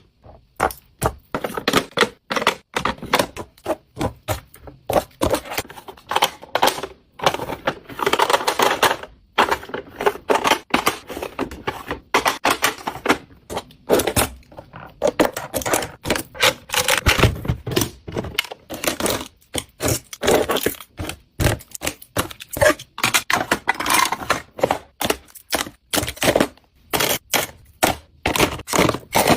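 Rapid, irregular tapping, clicking and scraping of items and packaging being handled and unpacked.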